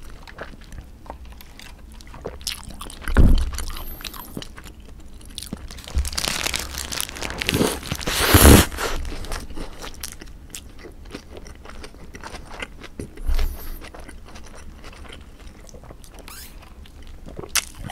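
Close-miked eating of a black squid burger: a big crunching bite, loudest about eight seconds in, then chewing with small wet clicks. There are a couple of short thumps from handling, and a brief sip through a straw near the end.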